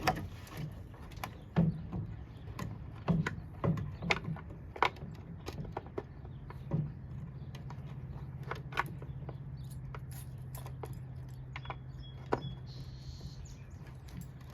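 Irregular clicks and knocks of small parts being handled and fitted during a bulb socket replacement. A steady low hum starts about six seconds in.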